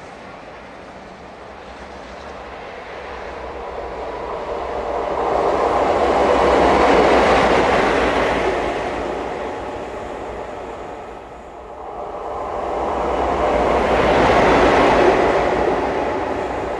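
Train passing at speed: rumble and wheel noise on the rails swell to a peak about seven seconds in and fade. A second pass follows, rising again to a peak near the end.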